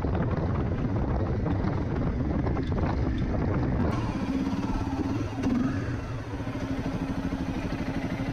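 Honda CRF250M's single-cylinder four-stroke engine running, settling into a steady note from about four seconds in.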